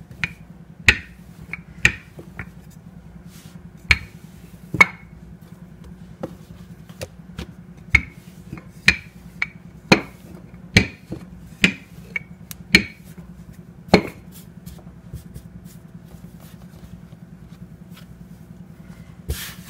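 Wooden rolling pin rolling out dough on a floured countertop, with irregular sharp clacks of the pin knocking against the counter, about one or two a second, stopping about two thirds of the way through. A steady low hum runs underneath.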